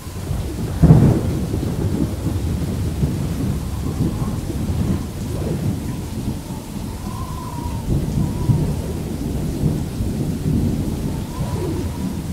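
Muffled low rumbling noise and knocks picked up by a body-worn action camera as its wearer scrambles over boulders, with a loud thump about a second in.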